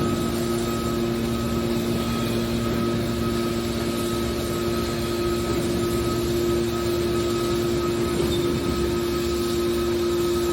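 Hydraulic scrap-metal baler running: a steady machine hum with a constant pitch that holds unchanged throughout.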